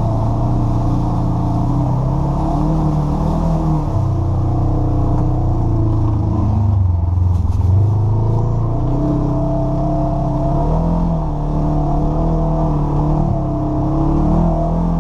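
Polaris RZR side-by-side's engine, heard from the cab, pulling along a muddy trail, its note rising and falling with the throttle. It drops off about six to seven seconds in, then climbs again.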